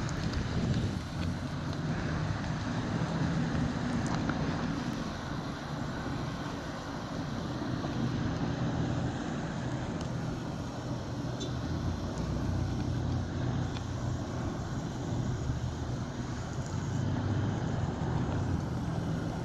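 A boat's diesel engine running steadily as it passes, a low drone with a broad rushing noise over it, swelling a little near the end.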